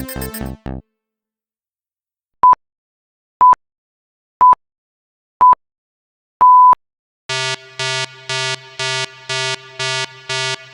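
Electronic beeps in a countdown pattern: four short beeps a second apart, then one longer beep. They are followed by a buzzing electronic alarm that pulses about twice a second. Before them, the first second holds the tail of a fast pulsing electronic effect.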